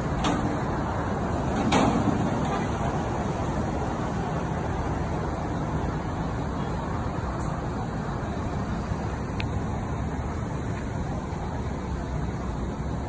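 Steady street background noise, a continuous low rumble like road traffic, with two brief knocks in the first two seconds.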